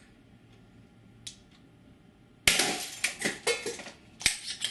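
Airsoft grenade launcher firing: a sudden loud pop about two and a half seconds in, then a few sharp clatters and knocks over the next two seconds.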